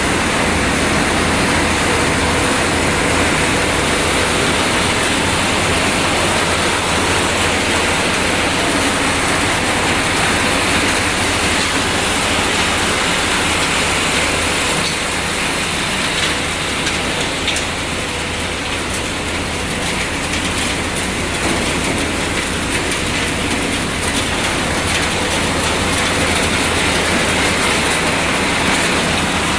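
Refrigerator dismantling and recycling line machinery running: a loud, steady mechanical din with a constant low hum and continual rattling and clicking.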